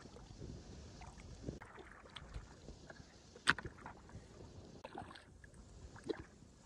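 Water sloshing and splashing in irregular strokes, with scattered small knocks and one sharp click about three and a half seconds in.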